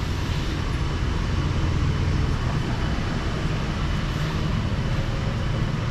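Steady low rumble, even throughout.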